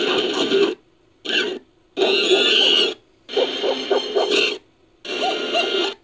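Edited creature sound effect made from chimpanzee vocalizations: five short bursts of rough, noisy calls with a few brief pitched squeals, each cut off abruptly with silent gaps between.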